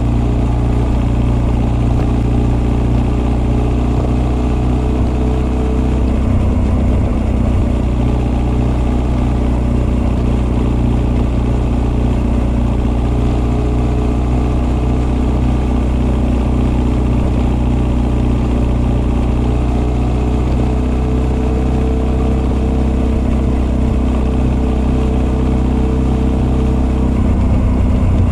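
Honda CB1300 SF's inline-four engine, breathing through Keihin FCR41 carburettors and an r's gear Wyvern full exhaust, running at a steady engine speed, with carburettor intake and exhaust both heard. The note shifts slightly about six seconds in and again near the end.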